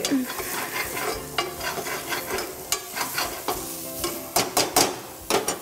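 A metal spatula stirring and scraping a masala of onion and spices frying in oil in a pan, over a steady sizzle. The spatula clinks against the pan again and again, with a quick run of sharper strikes near the end.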